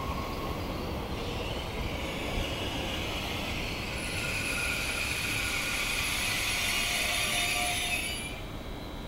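SNCF TER double-deck electric multiple unit running through the station, a steady rumble under several high squealing tones that grow louder midway and cut off near the end.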